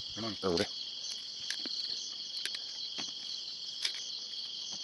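A steady, high-pitched chorus of night insects such as crickets. A short bit of a man's voice comes right at the start, and a few light clicks are heard from handling.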